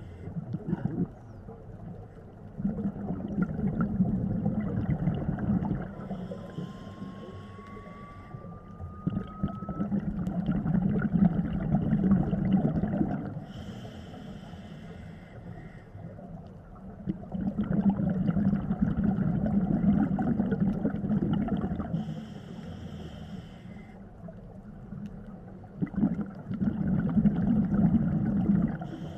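Scuba diver breathing through a regulator: a short hissing inhale alternating with a longer, louder stretch of rumbling exhaust bubbles, about four breaths in all.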